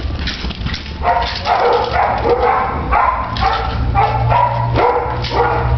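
Belgian Malinois barking repeatedly at a decoy, about two sharp barks a second.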